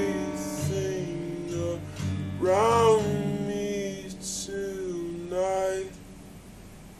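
Slowed-down acoustic guitar song with long held sung notes, the music ending about six seconds in and leaving only a faint hiss.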